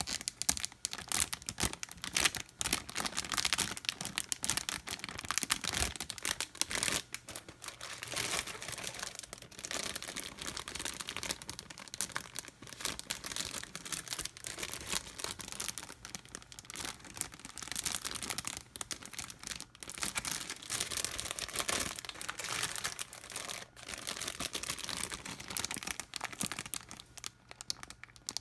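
Thin clear plastic bags holding plastic model-kit runners crinkling continuously and irregularly as they are handled and shifted in the box.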